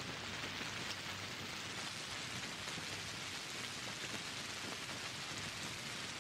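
Steady rain falling: an even hiss of many drops, with scattered single drops standing out.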